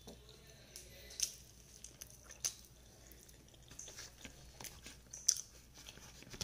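Close-up chewing of soft fried eggplant, with a few sharp, wet mouth smacks about a second, two and a half seconds and five seconds in.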